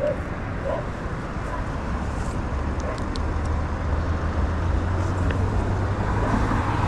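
Roadside traffic noise: a steady low vehicle engine hum over a rumble, swelling slightly from about halfway through.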